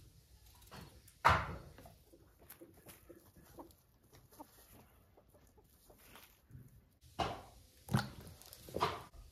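Chickens clucking, with a sharp knock about a second in. Near the end, three splashes as peeled potatoes are dropped one after another into a basin of water.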